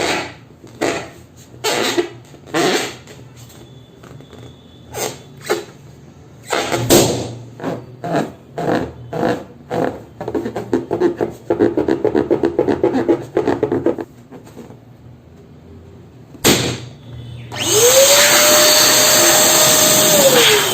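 Balloons squeaking and hissing as air is let out of them: a run of short bursts, then a quicker fluttering stretch. Near the end an electric balloon pump spins up, runs steadily for about three seconds, and winds down as it shuts off.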